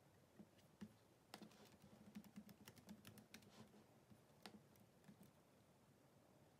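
Faint typing and clicking on a laptop keyboard: a quick, uneven run of key taps that stops about five seconds in.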